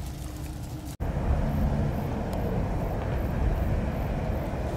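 Steady low rumble of nearby traffic. It becomes louder after an abrupt cut about a second in; before that, light ticks and rustles sit over a softer rumble.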